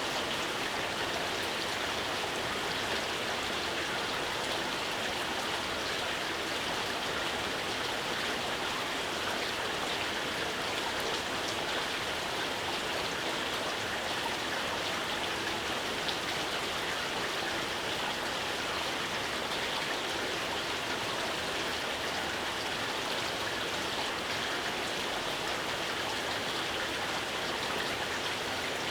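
Steady rain falling, an even hiss of raindrops with faint scattered drop ticks.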